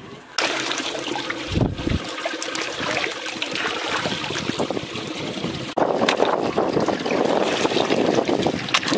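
Running water splashing and trickling over hands and vegetables being rinsed in a shallow stream. About six seconds in the splashing grows louder as water pours out of a plastic colander of vegetables back into the stream. A brief low bump of wind on the microphone comes early.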